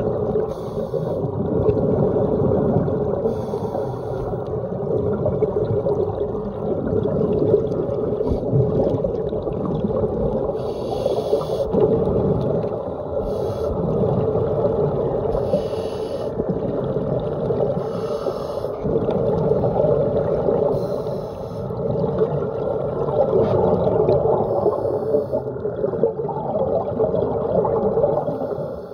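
Muffled underwater noise picked up by a phone inside a waterproof dive case, a dense rumble and wash. Every few seconds comes a short hissy burst of scuba regulator exhaust bubbles.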